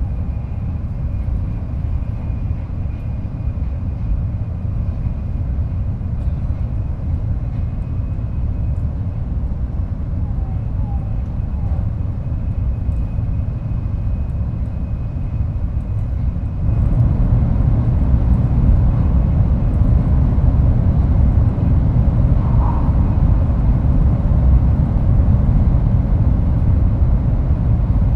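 Shinkansen bullet train running at speed, heard from inside the vestibule between cars: a steady deep rumble and rush with a faint high whine. The rumble gets suddenly louder about two-thirds of the way through and stays there.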